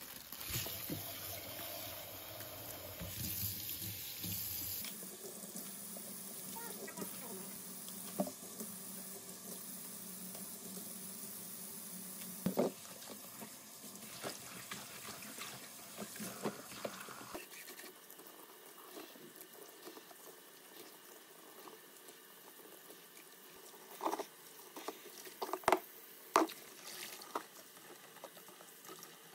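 Water running from a tap into a kitchen sink, with a few sharp knocks and clinks, mostly near the end.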